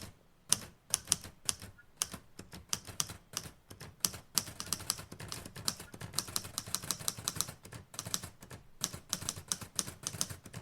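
Typewriter keys clacking in fast, uneven runs of strokes, with a few short pauses between runs.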